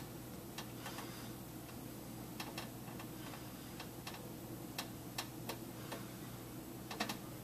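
Faint, irregular light ticks and clicks over a steady low hum: quiet room tone.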